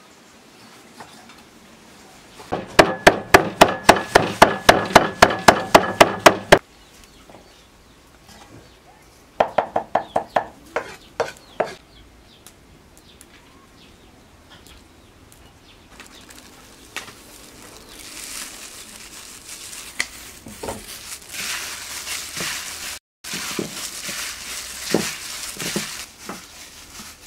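Cleaver chopping on a thick round wooden chopping block: a fast run of loud chops, about four or five a second, then a shorter run about ten seconds in. Later, softer rubbing and light clicking as meat is mixed by hand in a bowl.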